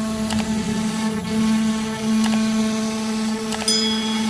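CNC router spindle running with a steady hum as its bit carves a relief pattern into an MDF panel. A few sharp clicks sound over it, the last followed by a brief high ding near the end.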